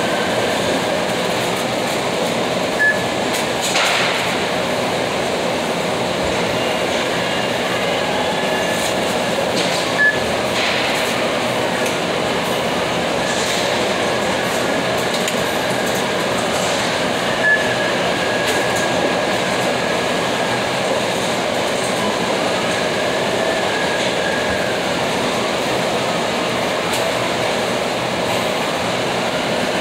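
Steady, loud mechanical running noise with three short high beeps spread through it.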